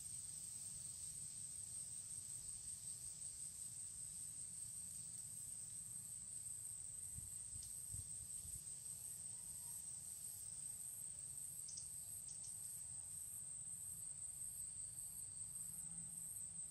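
Insects singing: a steady high-pitched trill with a fainter pulsing note above it. A few faint clicks come from hands fitting a snare cable onto a bamboo pole.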